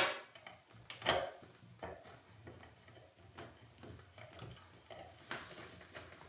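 Allen key turning the set screw under a chrome slip-on tub spout: a few light metal clicks and scrapes, the sharpest at the start and about a second in, then fainter ticks.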